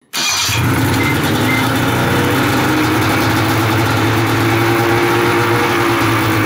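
Ski-Doo Rev snowmobile's freshly swapped two-stroke twin engine running at a steady idle, its bodywork off, cutting in suddenly just after the start. The engine speed rises a little and eases back again.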